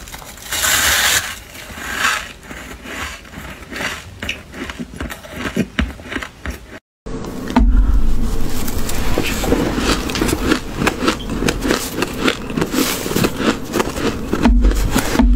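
Freezer frost crunching as it is bitten and chewed, a dense crackle of many small clicks. The sound cuts out briefly about seven seconds in, then a metal spoon scrapes through a heap of frost and the crunching goes on.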